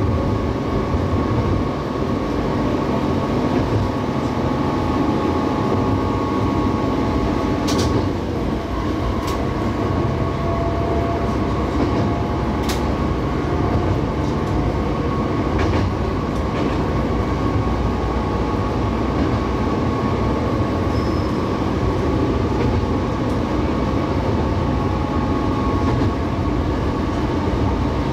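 Diesel railcar running steadily on a single-track country line, heard from inside the cab: a continuous engine and wheel drone with a faint steady whine. A few sharp clicks of the wheels over the rail come in the first half.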